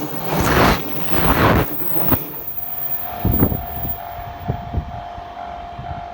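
JR Kyushu 883 series "Sonic" electric limited express passing over a level crossing: its wheelsets rumble by in a rhythm of loud swells for about two seconds, then the tail end passes, leaving a few sharp clicks and a steady high tone that fades.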